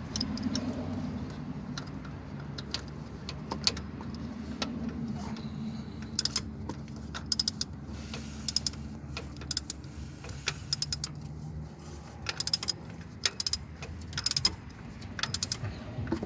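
Socket ratchet clicking in quick bursts as a mounting bolt on the truck's AC belt tensioner is turned in, over a steady low hum.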